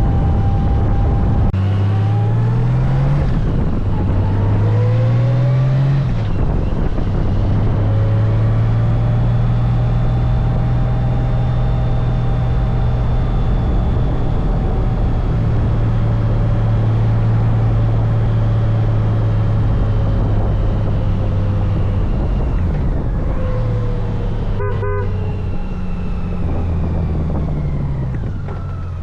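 Honda Gold Wing motorcycle engine accelerating, its pitch climbing twice through gear changes, then holding a steady pitch at cruising speed. Near the end the pitch falls and changes as it slows, over a constant rush of wind and road noise.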